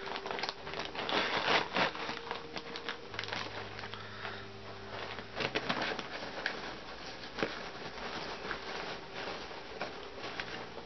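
Crinkling and rustling of a plastic snack bag being handled and opened, with scattered sharp crackles, thickest in the first two seconds.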